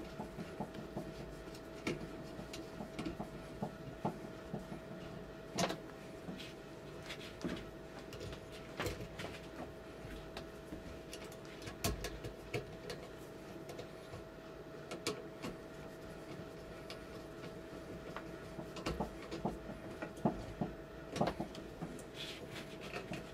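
Scattered small clicks and taps of a screwdriver and wire ends being worked at the terminal screws of a well pressure switch, over a faint steady hum.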